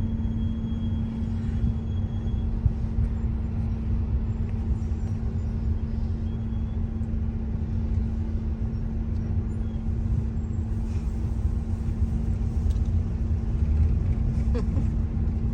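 Car cabin noise while driving: a steady low rumble of road and engine with a constant drone-like hum.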